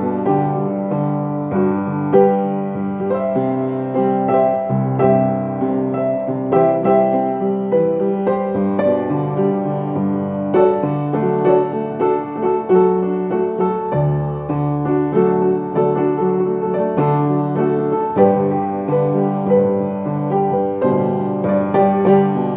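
Piano playing a slow, gentle piece: a melody in the upper notes over held low chords.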